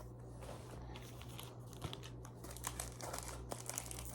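Pokémon card booster pack wrappers crinkling as they are handled and torn open, a stream of small crackles that gets busier in the second half.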